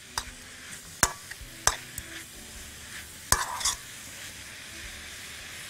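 Chicken livers and gizzards sizzling as they sauté with onion in a pan, stirred with a metal spoon that scrapes and knocks against the pan about five times. They are being browned briefly, only until they change colour.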